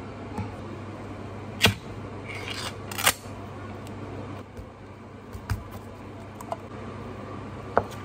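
A metal tin of canned ham being opened and emptied onto a plastic cutting board: two sharp metallic clicks about a second and a half apart with a short scrape between them, then a few lighter knocks as the block of ham is set down.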